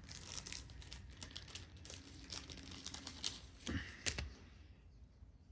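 Thin plastic card sleeve crinkling and crackling as a trading card is handled and slid into it, with a sharper crackle about four seconds in before it tapers off.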